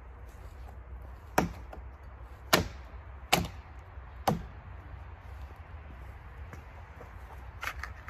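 Hatchet chopping into dead pine branches: four sharp strikes about a second apart. A couple of lighter clicks follow near the end.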